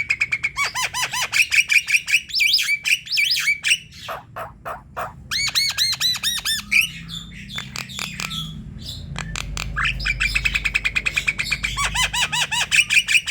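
Javan myna calling in an active, vocal mood: fast trains of harsh, chattering notes and looping chirps. It comes in three bursts separated by short pauses.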